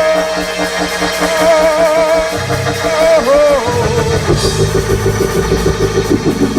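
Live church praise-band music: a long held, wavering melody note over a steady chord. About halfway through, the band moves into a quicker rhythm with bass and drums.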